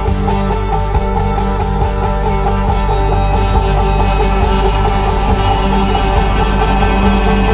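Background music with a quick, steady run of repeated notes over sustained tones.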